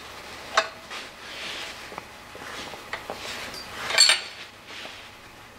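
An open-end wrench turns a freshly cut steel bolt through a nut held in a vise, so the nut runs over the cut end to repair the threads. There are metallic clinks and thread scraping, with a sharp click about half a second in and a loud ringing clank about four seconds in.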